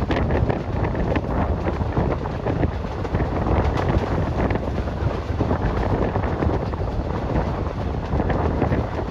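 Wind buffeting the microphone over the steady running rumble of a moving express train, heard from on board.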